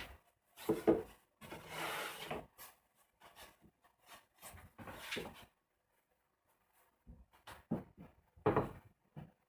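Wood being handled and worked by hand: irregular knocks of wood on wood and a scraping stroke about two seconds in, then a pause and a few more knocks near the end.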